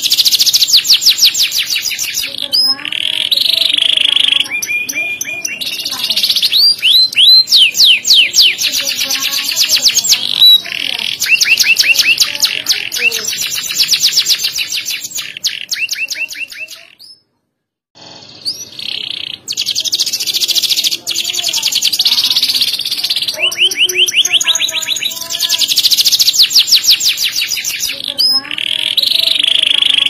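Domestic canary singing a long, loud song of rapid trills and rolling phrases, high and sharp, which breaks off for about a second just past the middle.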